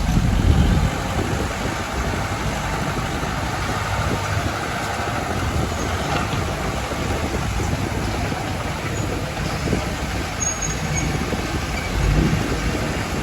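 Diesel engines of earthmoving machinery running steadily at a land-filling job. They get louder briefly about a second in and again near the end.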